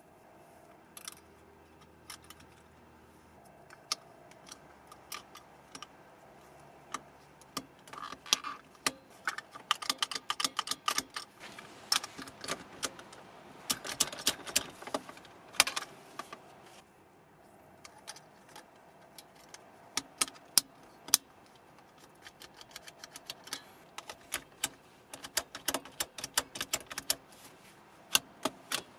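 Saab C900 seat belt buckle being worked by hand: a long run of sharp plastic and metal clicks and rattles as the new 3D-printed PLA release buttons are fitted and pressed and the metal latch plate is pushed in and released. The clicks are sparse at first and come in quick flurries through most of the rest.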